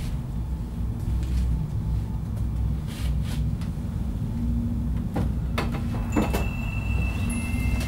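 A drawer sliding and things knocking about as someone rummages through stored belongings, over a steady low rumble. Several sharp knocks come between about five and six and a half seconds in, and thin, steady high tones come in about six seconds in.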